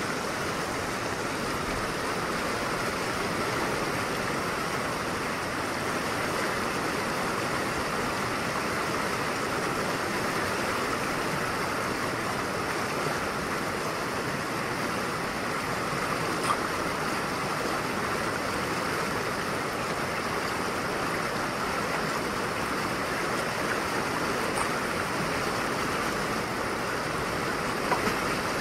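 Fast, rocky mountain river rushing steadily over boulders and through rapids, with two small clicks, one past the middle and one near the end.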